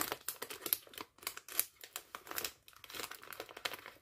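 Plastic snack-chip bag crinkling as it is handled and pinched at its top edge, a steady run of irregular small crackles.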